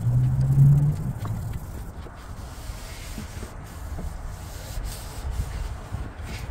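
Hand rubbing the surface of a wooden hiking stick: a steady scratchy rubbing with scattered small clicks. A low hum sounds over it in the first second.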